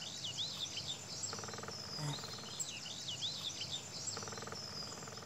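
Woodland ambience: small birds chirping in quick high runs, with a short buzzing trill twice, over a faint steady hiss.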